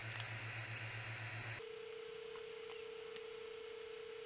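Steady, rapidly pulsing electrical hum that jumps abruptly from a low buzz to a higher single tone about a second and a half in, with a few faint clicks from pliers picking at 3D-printed plastic support material.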